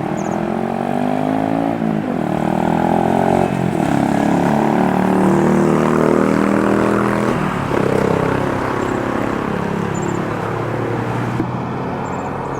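A passing engine drone, its pitch sliding as it grows louder toward the middle and then slowly fades. A few faint, short high chirps sound over it.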